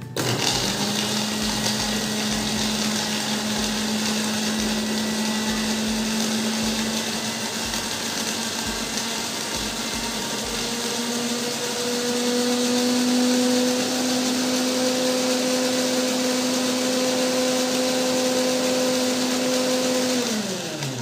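Small electric blender grinding garlic cloves with a little water, its motor running steadily. The motor's pitch rises slightly about halfway through, then falls as it winds down near the end.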